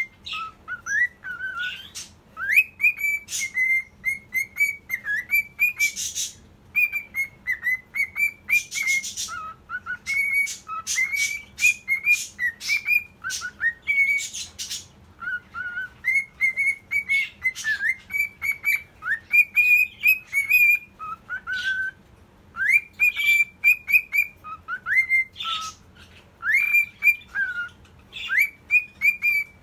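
Cockatiel singing: a long run of short whistled notes, many rising in pitch, with a few harsher raspy bursts mixed in.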